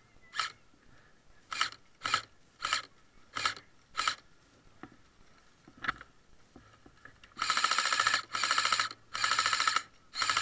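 Airsoft rifle firing: about seven single shots spread over the first six seconds, then four rapid-fire bursts, each under a second long, near the end.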